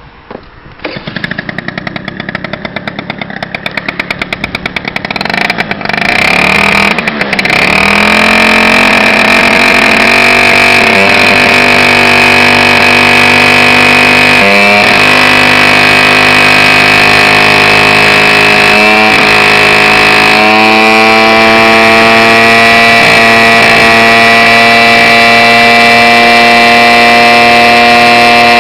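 Piaggio Zip scooter's small engine starting up, firing in an uneven pulsing beat for the first few seconds, then catching about seven seconds in and running steadily at one pitch, with a few brief dips in pitch along the way.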